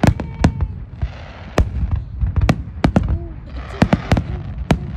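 Aerial fireworks bursting: an irregular string of sharp bangs and cracks, a dozen or so, over a low rumble.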